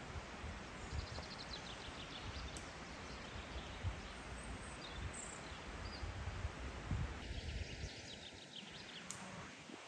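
Outdoor ambience: a steady hiss with an uneven low rumble, and faint high bird twittering about a second in and again near the end.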